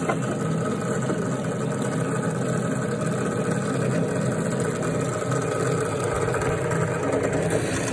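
Drill press motor running with a steady hum while holes are drilled in wooden struts.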